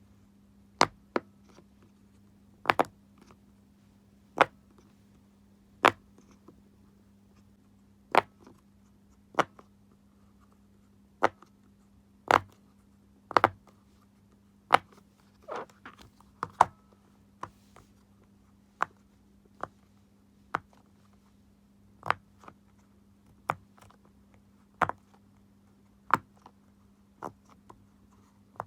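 Bubbles of a silicone Pop It fidget toy being pressed one at a time, each giving a short sharp pop. The pops come at uneven intervals, roughly one a second and sometimes two in quick succession, over a faint steady hum.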